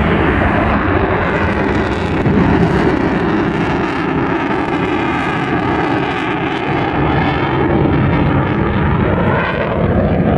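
Eurofighter Typhoon's twin EJ200 turbofan engines, loud, steady jet noise as the fighter flies its display. From about halfway through, the tone takes on a slow, sweeping, phasing sound.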